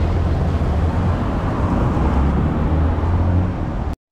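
A van's engine running close by, a steady low hum, with street noise of traffic on wet cobblestones; it cuts off abruptly near the end.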